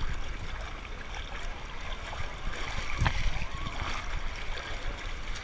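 Running, splashing water with a steady low rumble and a single sharp knock about three seconds in.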